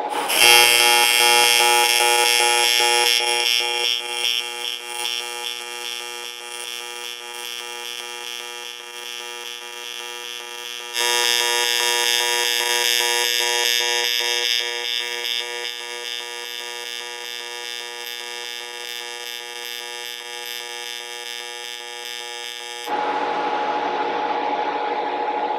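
Pulsed AC TIG welding arc on aluminium from a Miller Dynasty TIG welder, running steadily as filler rod is fed in: a pitched hum with many overtones. It is louder for the first few seconds and again about eleven seconds in, and the arc cuts off near the end.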